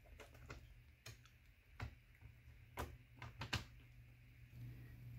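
A few faint, irregular plastic clicks as hands press on an HP Pavilion x360 laptop's keyboard and palm-rest deck, over a steady low hum.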